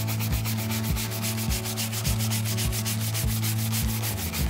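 A bristle brush rubbed briskly back and forth over a leather wallet, a quick, even run of scratchy strokes, about ten a second, over a steady low hum. The brushing works neatsfoot oil deep into the leather.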